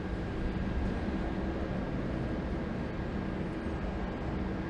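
A vehicle's engine running steadily: an even low rumble with a faint hum.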